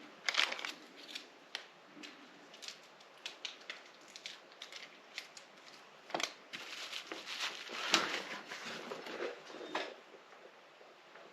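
Irregular small clicks, taps and crinkles of hands peeling the backing off adhesive foot pads and pressing them onto a glass TV stand base. The noises are busiest from about six to ten seconds in.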